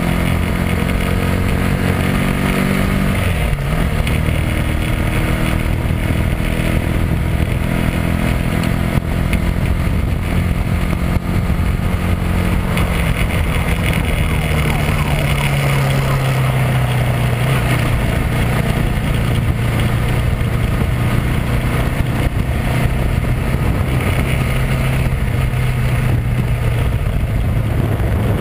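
Bera R1's 200 cc single-cylinder motorcycle engine running while riding, heard from on the bike. The revs fall over the first few seconds and drop again about halfway through, then the engine holds a steady note.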